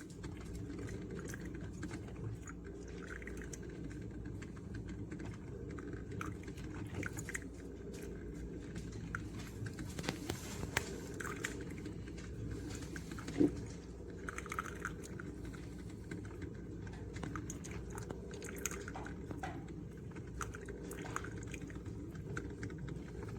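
Hamilton Beach 2-Way drip coffee maker brewing: a steady low hum under irregular hisses, sputters and gurgles of hot water, with a sharp click about halfway through.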